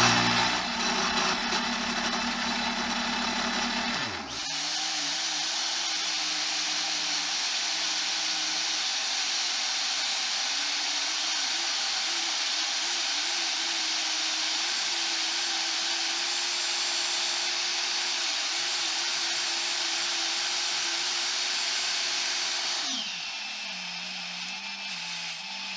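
Power tool working the steel pendant, most likely the drill countersinking its hole. About four seconds in, the sound changes abruptly to a long steady hiss with a faint wavering hum. Near the end it shifts to a quieter hiss with a lower hum.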